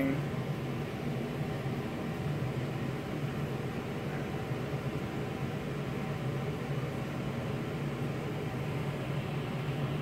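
Steady low hum with an even hiss, the sound of a room's ventilation or air handling running.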